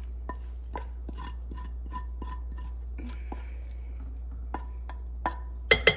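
Wooden spoon scraping cooked ground beef out of a skillet into a slow cooker's crock: a run of light taps and scrapes against the pan, with a few louder knocks near the end, over a steady low hum.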